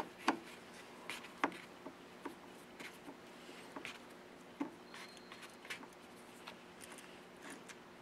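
Faint, scattered clicks and ticks of a Phillips screwdriver backing a small screw out of a white plastic cam and gear assembly, as the screw is turned and handled.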